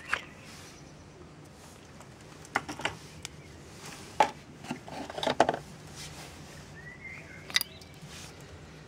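Hard cast-resin orgonite pieces clicking and knocking as they are handled and set down on a table: a handful of sharp taps spread out, with a cluster of them about five seconds in.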